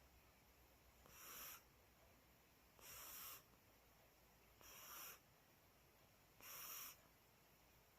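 Sleeping cat snoring softly: four hissy, wheezy breaths at an even pace, about one every two seconds.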